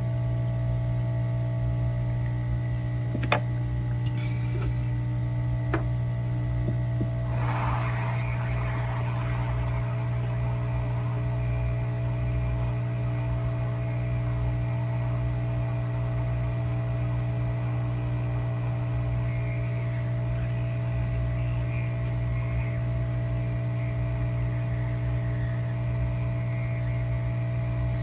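A steady electrical hum throughout, with two sharp clicks a few seconds in. From about seven seconds a hot air rework station's nozzle blows onto the logic board, a soft hiss as it heats the new 1.05V-rail capacitor to reflow its solder.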